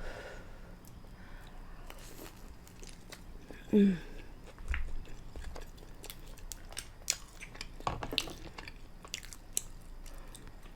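Close-up chewing of mussels and sauce-soaked garlic toast: irregular wet mouth clicks and smacks. One brief, loud, pitched sound from the mouth or throat comes about four seconds in.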